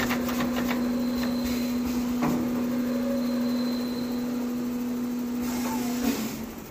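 Automatic inline liquid filling machine running: a steady hum with a few sharp clicks from its pneumatic parts. About six seconds in the hum cuts off, with a short hiss of air, as the filled bottles are moved off along the conveyor.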